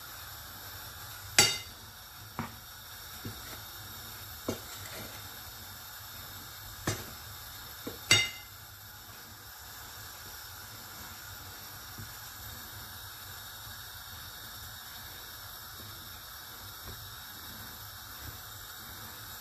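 Metal kitchen utensils clinking against dishes: a handful of sharp clinks in the first eight seconds, the loudest about a second and a half in and about eight seconds in, over a steady hiss.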